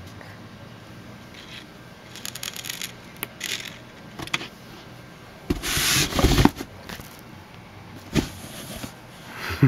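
Scratching and rubbing of a cat moving around and against a cardboard box on carpet, in scattered short bursts. The loudest is a scuffle with thumps lasting about a second a little past the middle, followed by a couple of sharp knocks.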